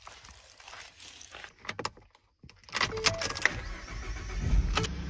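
Keys jangling and clicking as the key goes into a Ford F-150 pickup's ignition, then the truck's engine starting, its low rumble building in the last second or so.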